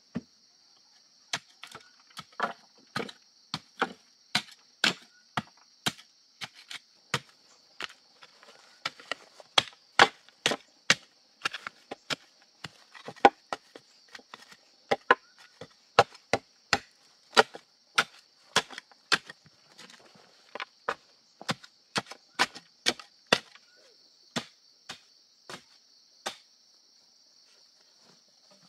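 Earth being tamped down around the base of an upright bamboo post with a wooden stick: a long run of sharp knocks, about two a second, uneven in strength, stopping near the end. A steady high insect drone runs underneath.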